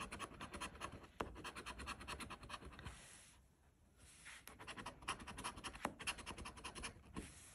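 A large metal coin scraping the coating off a scratch-off lottery ticket in rapid back-and-forth strokes. It stops for about a second and a half a few seconds in, then starts scratching again.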